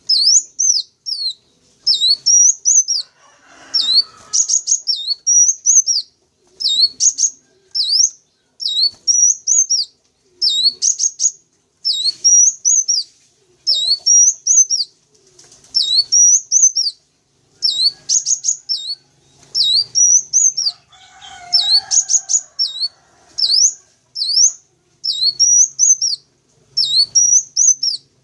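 Sunbird lure call: a high phrase of quick rising and falling chirps, repeated over and over about once a second in a steady loop. Twice a fainter, lower chatter sounds beneath it.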